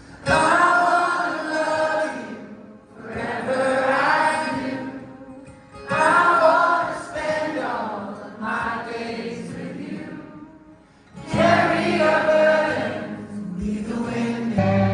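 A song sung by several voices together, in phrases about two seconds long with short breaks between them.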